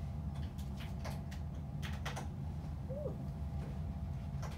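Several sharp key clicks from an ultrasound machine's console keyboard over a steady low hum, bunched in the first half and a couple close together around two seconds in.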